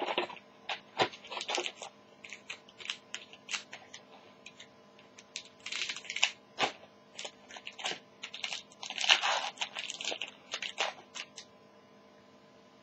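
A foil trading-card pack wrapper crinkling in the hands as it is opened, with cards being handled. Irregular crackling with denser bursts, the loudest about nine seconds in, stopping shortly before the end.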